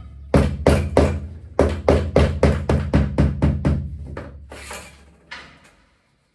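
Background music with a steady percussive beat over a low bass, fading out over its last couple of seconds.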